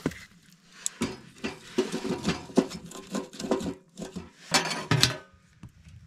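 Split firewood being loaded into a small steel wood stove: a quick, irregular run of wooden knocks and metallic clanks against the firebox.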